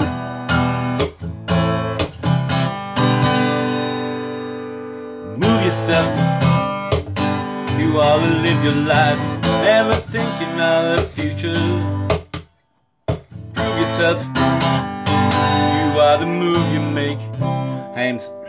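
Acoustic guitar strummed in chords, with one chord left to ring out about four seconds in before the strumming resumes. The sound cuts out completely for about half a second about two-thirds of the way through.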